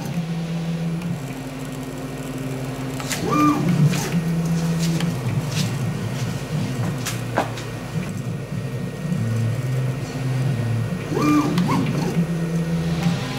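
CNC mill's axis stepper motors and drives moving a spring-loaded carbide drag-engraving scriber across anodized aluminium, with the spindle not turning. A steady low hum, with whines that rise, hold and fall back as the axes speed up and slow down at each move, and a few sharp ticks. These are the creaks and groans of the motors and drives, which doesn't sound good.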